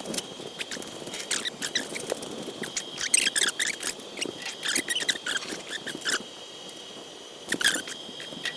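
Engine hoist being rolled and shifted under a hanging aircraft engine: rapid runs of small high squeaks and clicks from its casters and metal joints, pausing for about a second and then a short burst again near the end.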